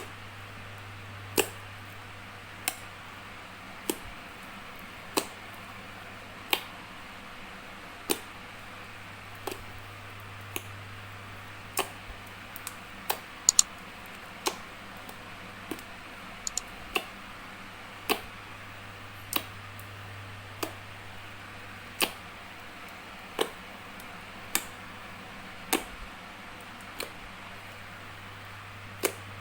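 Sharp sticky clicks and pops from clear dish-soap slime being pressed and poked, about one every second and a quarter, over a steady low hum.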